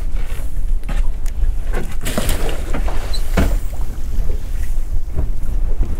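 Wind buffeting the microphone on a small boat at sea, a steady low rumble, with scattered knocks and handling noises and a brief rush of hiss about two seconds in.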